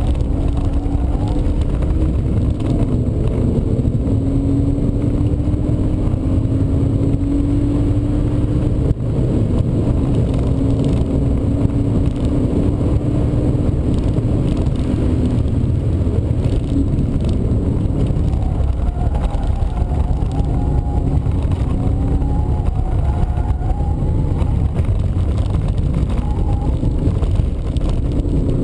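BMW E36 320i's 2.0-litre straight-six heard from inside the cabin under hard acceleration, its pitch climbing and breaking at each upshift as the car reaches about 140 km/h, then easing off as it slows for a corner. A heavy rumble of road and wind noise runs underneath.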